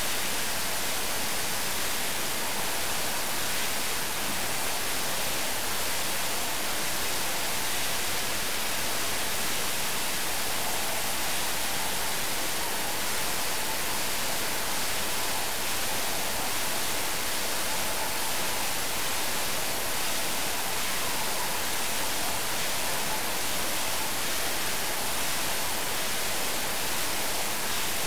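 Steady rushing hiss of agitated water spraying and churning in a vial washing machine's tank, unchanging throughout.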